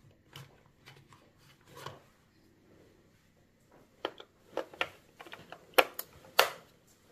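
Hard plastic toy coin bank being handled and turned over: soft rubs and light taps, then from about halfway a run of sharp plastic clicks and knocks, the loudest two near the end.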